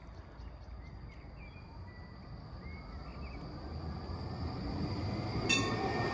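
NGT DX DD low-floor tram approaching, its running and rolling noise growing steadily louder as it nears. Faint bird chirps sound over the first few seconds, and a single sharp clack comes about five and a half seconds in.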